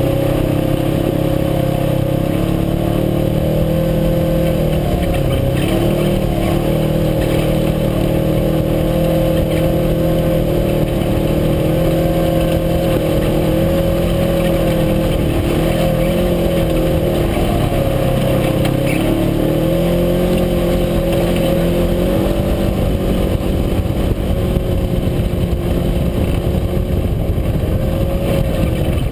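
UTV engine running steadily under way, its pitch dipping and climbing back a few times as the engine speed changes.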